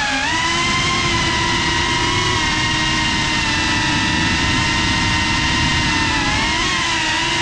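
FPV racing quadcopter's motors and propellers whining, a steady pitch that dips briefly at the start and wavers near the end as the throttle changes, over a rushing noise.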